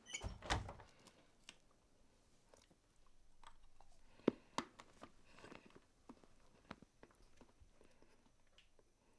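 A muffled thud about half a second in, then faint, scattered crunching clicks of someone chewing.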